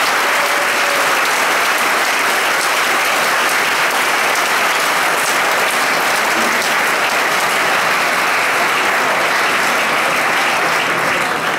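Large audience applauding, a dense steady clapping that fades right at the end.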